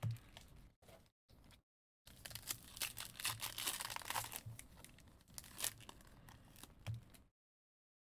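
Foil trading-card pack wrappers crinkling and tearing as football card packs are opened, with sharp clicks of cards being handled. The sound drops out to dead silence twice.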